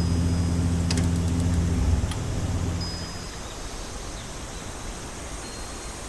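Electronic soundscape: a low hum of several steady tones fades out two to three seconds in, leaving a steady hiss with short high beeping tones and a few faint clicks.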